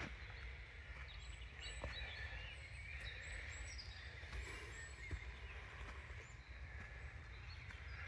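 Quiet outdoor ambience: a low steady rumble, faint chirps in the distance and a few soft clicks.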